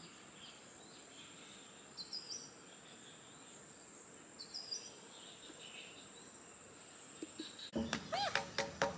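Quiet garden ambience: a steady high-pitched insect drone with two faint short bird chirps. Near the end several livelier bird calls come in, gliding up and down in pitch.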